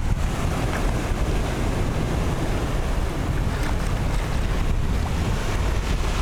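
Wind buffeting the microphone, a steady low rumble, over small waves washing up on a sandy beach.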